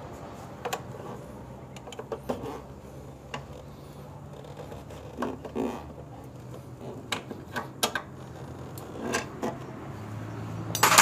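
Irregular metallic clinks and taps as a steel T-rod and a long screwdriver knock against the motorcycle frame and the hard plastic air-filter housing while the housing is levered out. A faint steady low hum runs underneath.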